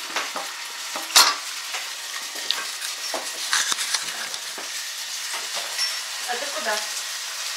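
Oil sizzling steadily in a frying pan as potato pancakes fry, with one loud clink about a second in and a few lighter clinks.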